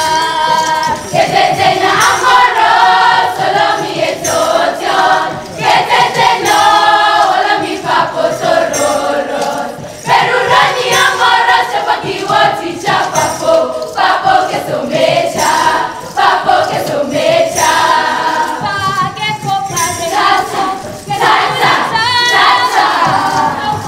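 A group of voices singing a traditional Pokot song in chorus, in short repeated phrases, over a rhythmic percussive beat.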